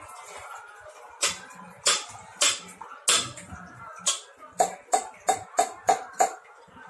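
Steel saucepan held in pan tongs, knocked repeatedly while the last of the tea is poured out of it: a series of sharp metallic clinks. The clinks come about every half second at first, then quicker and ringing near the end.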